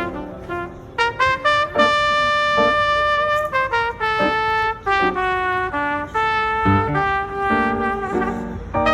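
Background instrumental music: a brass melody of held and short notes.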